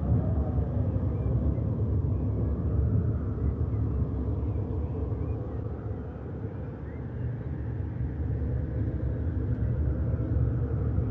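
Steady low rumble with faint tones above it that slowly rise and fall; it dips a little in loudness about six seconds in.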